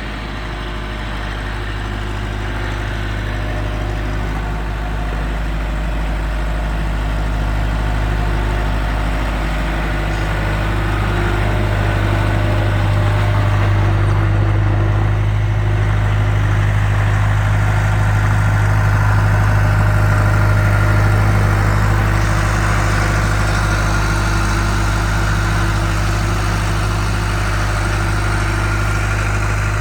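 Case 1845C skid steer's diesel engine running steadily at idle, a constant low hum that grows louder over the first several seconds and then holds even.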